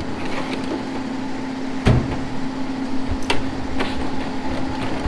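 Steel tool chest drawers being worked: a heavy knock about two seconds in as a drawer shuts, then a sharper click as the next drawer slides open, over a steady background hum.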